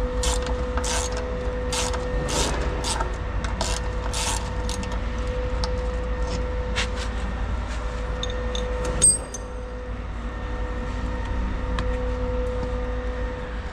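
Hand wrench clicking in quick strokes, about two a second, as a bolt on a concrete pump hopper's washout apron is worked loose, then one sharp, ringing metallic clink about nine seconds in. A steady hum runs underneath.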